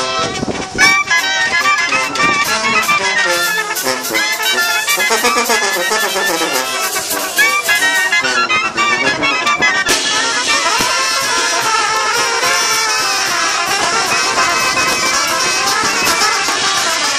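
Mexican banda playing live: sousaphone, trumpets and clarinets over timbales, drum and cymbal. The sound changes abruptly about ten seconds in.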